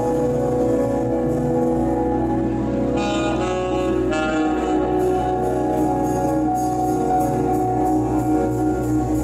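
Live jazz: a tenor saxophone plays long held notes, stepping from pitch to pitch, over the band.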